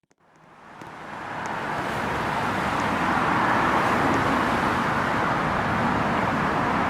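Steady airliner cabin noise in flight, an even rush of engines and airflow with a low rumble, fading in from silence over the first two seconds.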